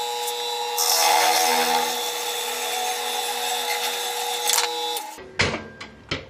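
Small lathe motor running with a steady whine while a thin parting tool cuts through a spinning cast resin pen blank, a harsh scraping hiss that lasts about four seconds. The lathe stops a little after five seconds in, followed by a few light knocks.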